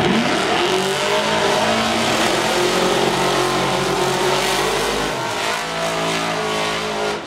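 Supercharged drag-racing hot-rod engine revving up within the first second and held at high revs during a burnout, with spinning rear tyres adding a rushing hiss. The sound cuts off abruptly near the end.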